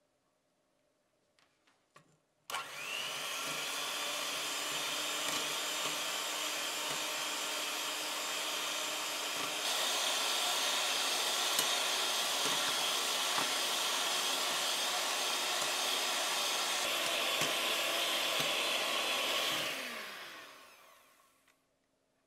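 Electric hand mixer whipping instant coffee, sugar and cold water into foam in a glass bowl. The motor starts suddenly a couple of seconds in, runs steadily, steps up to a louder, higher speed about halfway, then winds down near the end.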